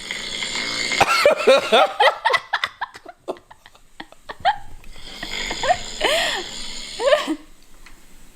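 A man snoring loudly, played back through a phone's speaker: two long snores, the second starting about four seconds in, with laughter over them.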